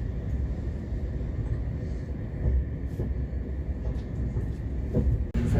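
Steady low rumble of a suburban passenger train running along the line, heard from inside the carriage, with a few faint clicks. The sound cuts out abruptly for a moment near the end.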